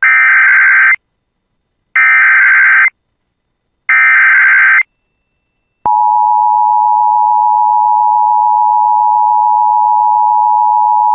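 Emergency Alert System SAME header: three one-second bursts of warbling digital data tones, about two seconds apart, encoding the tornado warning. About six seconds in, the steady EAS attention tone begins and holds, signalling that a spoken alert follows.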